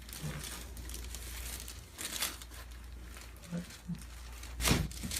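Soft rustling and crinkling as a patient is handled on a chiropractic treatment table, then one short, sharp knock near the end during the adjustment.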